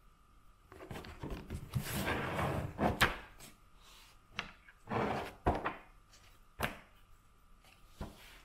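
Indoor handling noises: rustling and sliding for a couple of seconds, then several separate sharp knocks and clicks, like objects being moved and set down.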